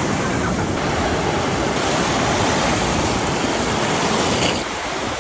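Ocean surf breaking and washing up the beach, a steady loud rush that eases a little near the end.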